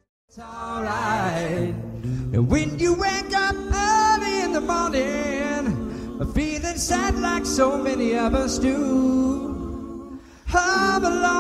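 A group of male and female voices singing a cappella in close harmony, with held chords. The sound cuts out briefly at the start and dips about ten seconds in.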